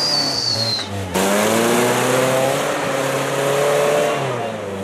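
Rock-crawling 4x4's engine pulling under load as the truck climbs over rocks, its pitch rising slowly and then easing off near the end. A high whine sounds in the first second.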